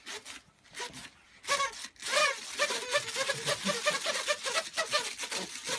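Several paper party blowers tooted in short, buzzy, repeated blasts, starting about a second and a half in.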